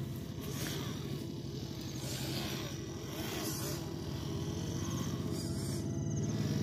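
Small electric motor and gearbox of a homemade RC tractor running steadily under load as it drags a disc plough through soil, a low whirring hum that gets a little louder near the end.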